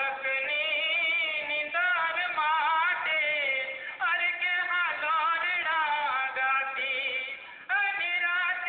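Singing: a voice holding long, wavering, ornamented notes in phrases a second or two long, over music.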